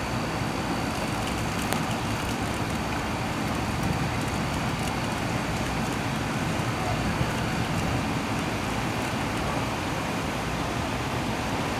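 Heavy thunderstorm rain falling over city streets and rooftops, a steady even rush.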